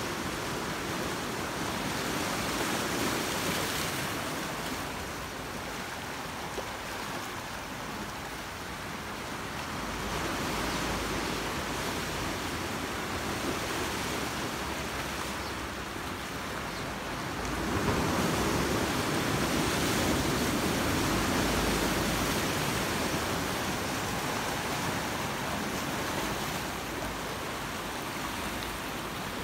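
Ocean surf breaking and washing into a shallow rocky tide pool: a steady rush of water that swells louder a few times, most strongly about two-thirds of the way through.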